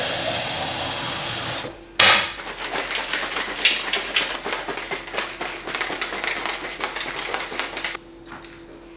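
Kitchen tap running water into a plastic shaker bottle for about two seconds, then the shaker bottle of protein shake being shaken hard for about six seconds: a fast, dense rattling that stops near the end.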